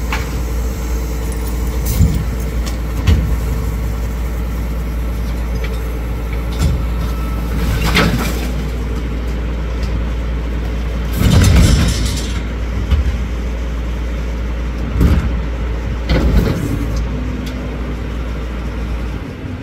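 Rear-loading garbage truck running steadily while its hydraulic bin lifter raises a large wheeled rubbish bin, tips it into the hopper and lowers it again. Sharp knocks and clanks of the bin sound every few seconds, and the loudest clatter comes about eleven seconds in, while the bin is up and being emptied.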